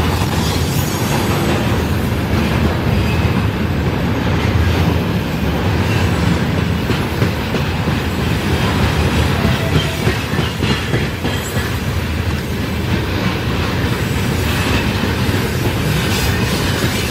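Freight train wagons (tank cars, container flatcars and open gondolas) rolling past close by: a loud, steady rumble of steel wheels on the rails, with wheels clacking over the rail joints.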